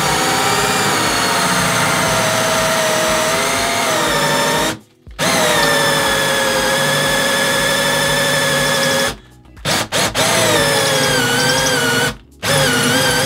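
Cordless drill drilling into the wooden kitchen worktop, its motor running in long steady runs with the pitch wavering as the bit loads up. It stops briefly three times, about five, nine and twelve seconds in.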